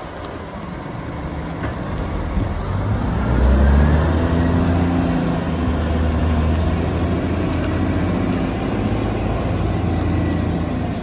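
Caterpillar 740 6x6 articulated dump truck's diesel engine pulling away. The revs rise about three to four seconds in, then it runs steadily under load as the truck drives off.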